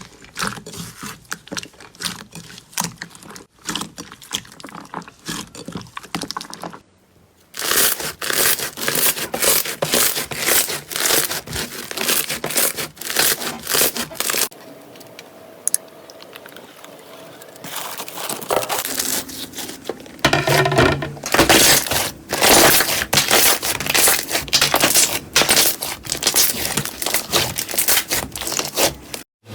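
Slime being pressed, stretched and poked by hand, making dense rapid clicks and crackles. The sound breaks off briefly about seven seconds in, goes quieter in the middle, and comes back busier and louder for the last third.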